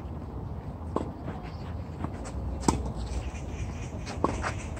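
Tennis rally: a racket strikes the ball three times, about a second and a half apart, the middle strike the loudest, over a low steady rumble.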